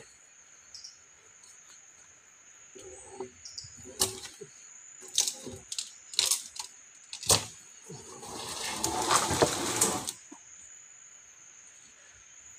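Freshly sawn red meranti planks being handled and stacked: several sharp wooden knocks, then about two seconds of scraping as a plank slides over the others. A steady high insect buzz runs underneath.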